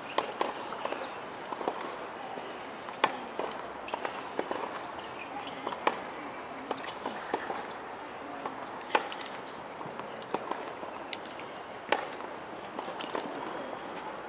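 Tennis balls struck by rackets in a rally: sharp pops about every second and a half, every other one louder, with fainter pops from other hits around them.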